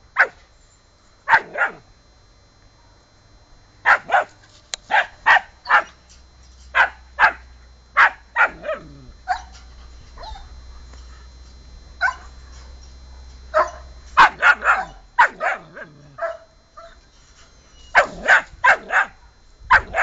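Puppy barking at a cat in high, short yaps, coming in quick runs of two to four with short pauses between.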